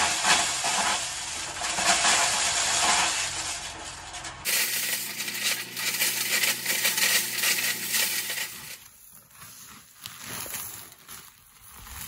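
Dry shelled corn kernels pouring and clattering into sacks, a dense rattle of many small hard grains, loud at first and dropping to a softer, scattered clicking near the end as kernels are scooped by hand.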